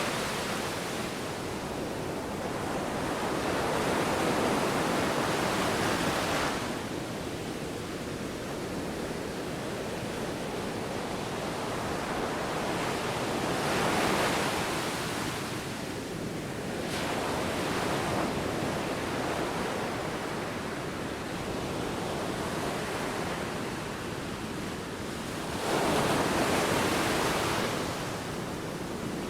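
Sea waves breaking and washing in, a steady rush of surf that swells three times as waves come in, with wind.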